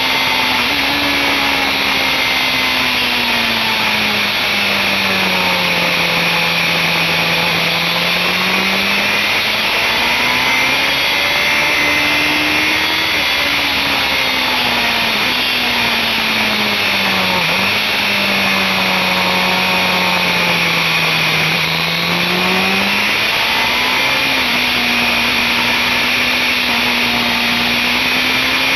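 BMW S1000RR inline-four engine at high revs, heard from onboard under heavy wind noise. Its pitch sinks slowly and climbs again twice, with a short sharp dip at a shift about two-thirds of the way in.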